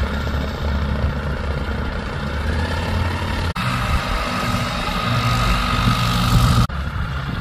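Small light aircraft's piston engine idling on the ground with the propeller turning, heard up close as a steady low drone. The note changes abruptly about three and a half seconds in and again near the end.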